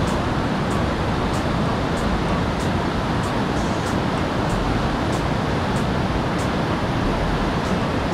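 The Kunhar River running high and fast over rocks: a steady, loud rush of white water.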